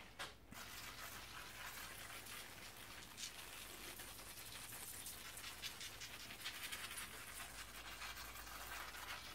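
Hand-pump pressure sprayer hissing steadily as it sprays cleaning fluid over a motorcycle fork's main spring, with a faint fluttering spatter.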